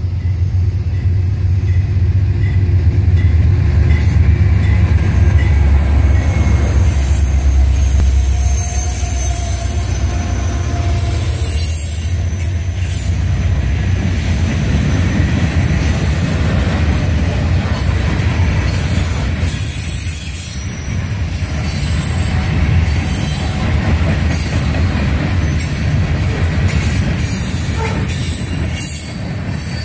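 Freight train passing: a deep diesel locomotive drone for the first eight seconds or so, then covered grain hopper cars rolling by with a steady rumble and clatter of wheels on rail and some faint high wheel squeal.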